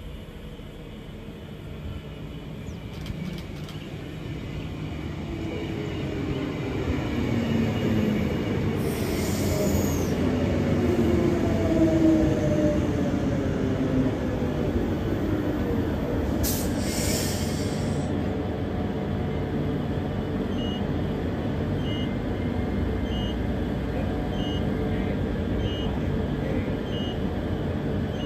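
Electric multiple unit EMU 57 pulling into the platform: its traction motors whine down in pitch as it slows, with two short hisses. It then stands running, with beeps about once a second near the end.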